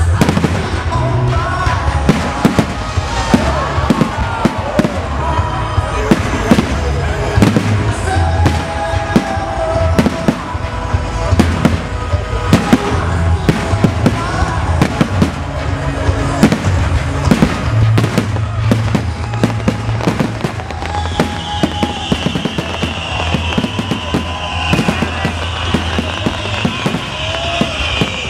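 Professional fireworks display bursting in quick, irregular succession, with sharp bangs over music played with the show. In the last several seconds a high, slowly falling hiss joins in.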